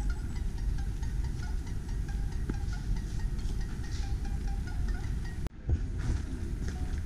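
Steady low rumbling outdoor noise, like wind buffeting the microphone, with faint short high chiming tones scattered over it. It cuts out for a moment about five and a half seconds in, then resumes.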